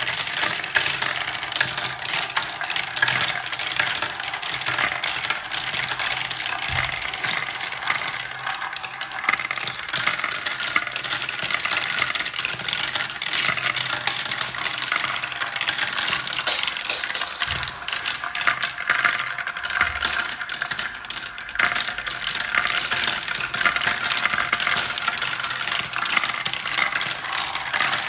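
Glass marbles rolling and clattering through the clear plastic tracks and funnel bowl of a marble run, a continuous dense rattle of small clicks and taps.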